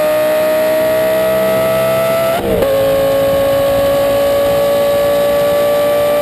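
Car engine under hard acceleration, its note climbing slowly in pitch. About two and a half seconds in there is a quick upshift: the sound dips briefly and the pitch drops, then starts climbing again.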